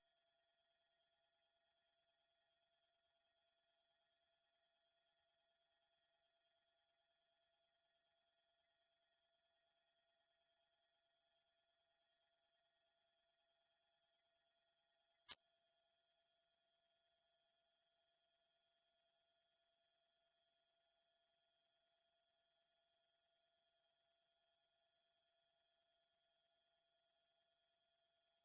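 Dog whistle sound effect: a single very high-pitched pure tone held dead steady and loud, with one faint click about halfway through.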